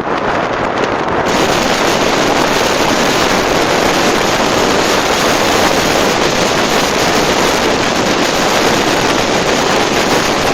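Loud, steady wind rushing and buffeting over the microphone of a moving motorcycle, growing brighter about a second in.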